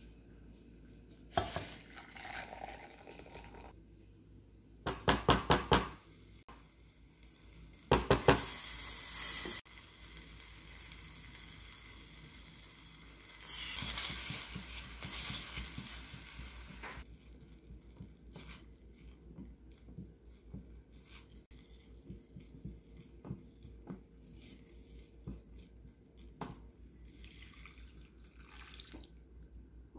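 Broth poured from a pot into a glass measuring cup, and a couple of quick runs of knocking from the pot and utensils. Then a spatula stirs seasoning paste that sizzles in a ceramic pot on an induction hob, followed by light scraping and tapping against the pot.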